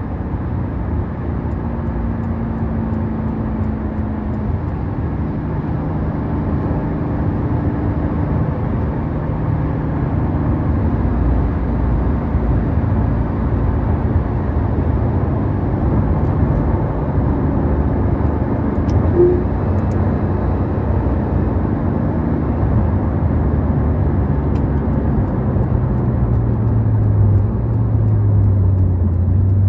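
Porsche 991.2 911 GT3 RS's naturally aspirated 4.0-litre flat-six cruising at highway speed, heard from inside the cabin over steady road and tyre noise. Near the end the engine note falls in pitch.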